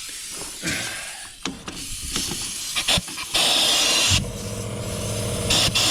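Compressed air hissing out in loud bursts, then about four seconds in an air compressor's motor starts and runs with a steady hum, with another burst of hiss near the end. The owner suspects moisture in the compressor or worn air tools.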